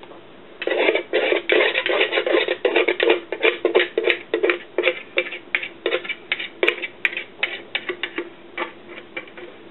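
A utensil scraping round a mixing bowl in a fast, uneven run of strokes as the last of the marinade is scraped out into a zip-top bag. The strokes start about half a second in and thin out near the end.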